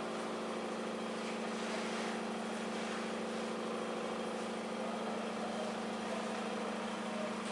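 Steady low machine hum with a few higher tones over it, unchanging throughout, with faint scratches of a marker writing on a whiteboard.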